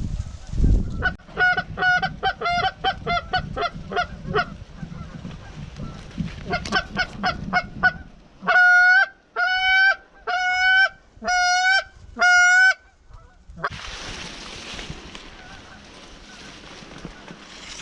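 Geese honking: a run of quick short honks, then five longer, loud honks about a second apart, followed by a hissing rush of noise near the end.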